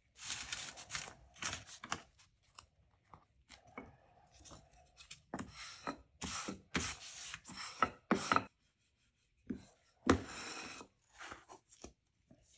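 Gloved hands rubbing and smoothing paper and black camera-bellows cloth over a wooden board, in irregular rustles and scrapes. A sharp knock comes about ten seconds in.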